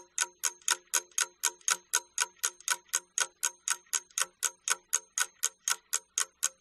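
Ticking-clock timer sound effect: even, sharp ticks about four a second, each with a short bright ring, marking the time given for the exercise.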